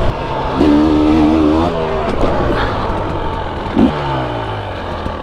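KTM 300 EXC single-cylinder two-stroke dirt bike engine under way on a trail, revving up about half a second in, holding for about a second, then easing back, with a short blip near four seconds followed by a falling pitch.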